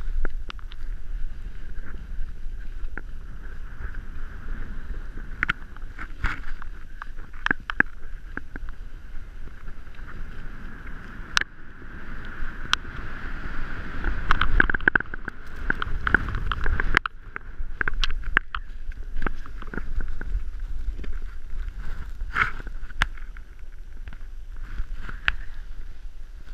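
Riding a ski slope: snow hissing and scraping under the camera-wearer's board or skis, with wind rumbling on the microphone and scattered sharp clicks and knocks. The wind rumble is strongest a little past the middle.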